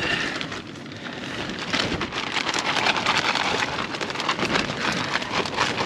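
Plastic zip-lock bag crinkling and rustling as it is handled, a dense crackle that grows busier about two seconds in.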